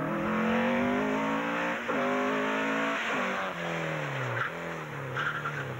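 Engine of a Group H Opel Kadett C slalom car accelerating hard, its pitch climbing. A quick gear change comes just under two seconds in, and the pitch climbs again before falling away from about three seconds in as the car passes.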